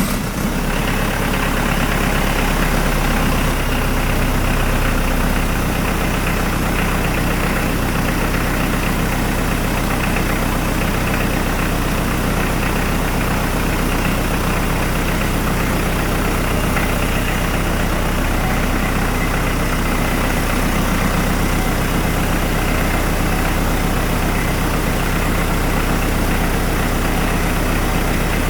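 Hyundai D4BH 2.5-litre four-cylinder turbo-diesel idling steadily just after starting.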